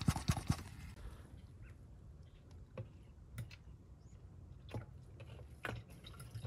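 Faint, scattered light clicks and knocks of plastic being handled over a low steady background hum: the catch bottle of a hand vacuum brake-bleeding pump being tipped and emptied into a plastic jug.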